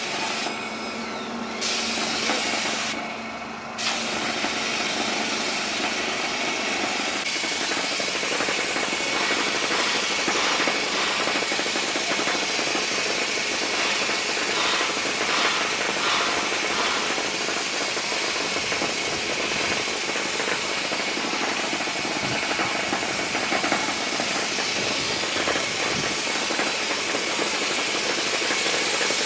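Paint and putty spraying machine running with a steady hiss of air and spray over its motor.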